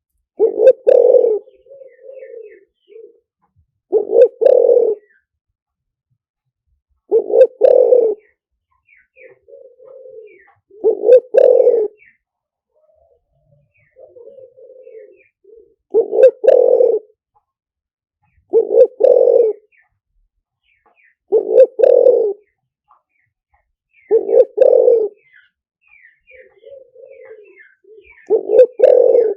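Spotted dove cooing: loud coo phrases of two or three notes repeat about every three seconds, with softer coos between them and faint small-bird chirps in the background. It is the advertising call that trappers play as a lure to bring wild spotted doves in.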